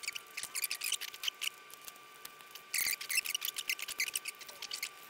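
Needle-nose pliers working a cotter pin out of the pin on the rear brake master cylinder linkage: a quick, irregular run of small metallic clicks and scrapes as the pin's legs are bent and pulled.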